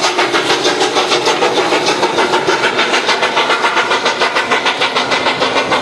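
Steam locomotive under way, chuffing at a quick, even beat of about six exhausts a second.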